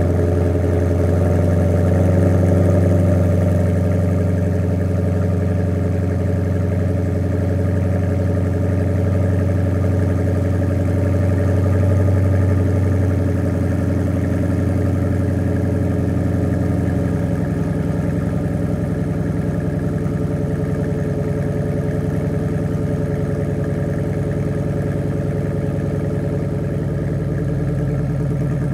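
2017 Dodge Charger Scat Pack's 392 (6.4-litre HEMI V8) idling high on a cold start through a Borla Type S cat-back exhaust, a deep steady rumble. About two-thirds of the way through, the idle drops to a lower note as the fast cold idle begins to settle.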